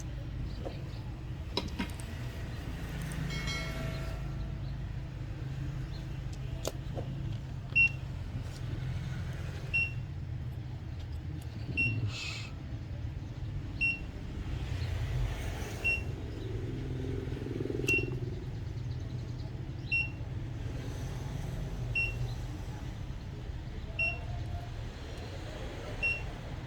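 A short, high electronic beep repeating evenly about every two seconds, ten times, over a steady low rumble.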